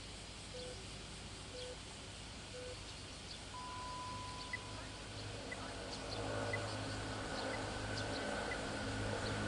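Hour time signal: three short low pips a second apart, then one longer pip an octave higher, marking 6:00 before the chime. Heard faintly over quiet outdoor ambience, with light ticking about once a second and a low rumble of background noise building near the end.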